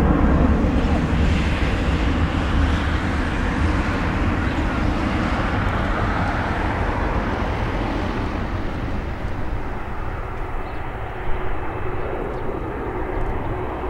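Four jet engines of a departing Boeing 747-400 at takeoff thrust: a deep, rumbling jet noise that slowly fades as the airliner climbs away. A single short sharp click near the end.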